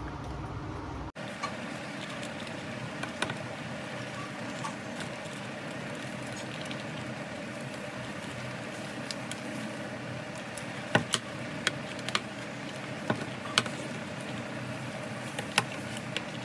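Steady background noise with scattered sharp clicks and taps, several close together in the second half. The clicks are typical of headphones being handled while the ear cushions are fitted.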